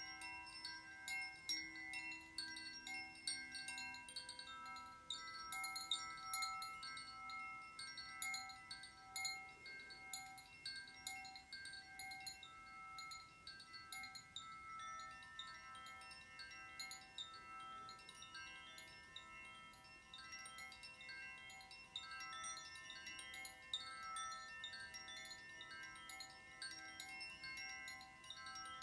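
Shanti chimes tinkling in a continuous, irregular scatter of light strikes, with many long ringing tones overlapping beneath them.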